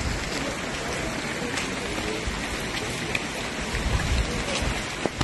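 Heavy rain falling steadily, with a few sharper drop ticks.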